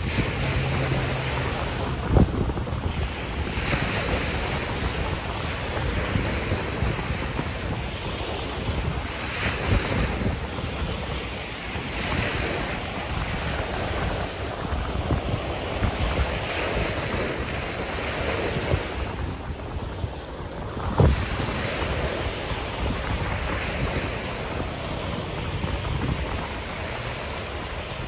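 Ocean surf washing onto the beach, with wind buffeting the microphone in a low rumble. Two sharp thumps stand out, about two seconds in and again near the twenty-first second.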